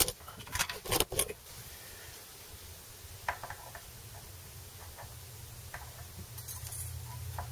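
Small metallic clicks and taps of needle-nose pliers and a guitar string being worked into a Floyd Rose tremolo saddle: a cluster of sharp clicks in the first second and a half, then a few faint ticks.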